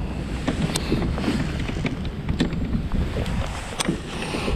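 Wind buffeting the microphone as a steady low rumble, with scattered light clicks and taps through it.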